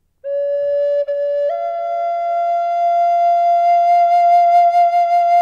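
Solo flute music: a low note, re-sounded once, then a step up to a higher note held long.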